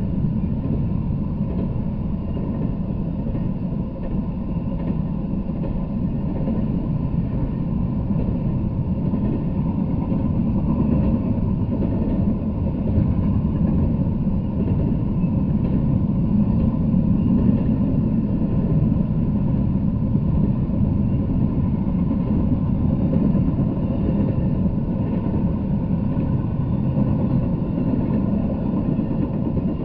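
Intermodal freight train rolling steadily past, a continuous low rumble of wheels on rail.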